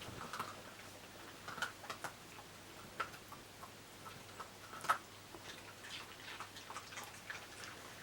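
Dogs eating raw vegetables: crisp crunching and chewing heard as irregular sharp clicks, the loudest about five seconds in.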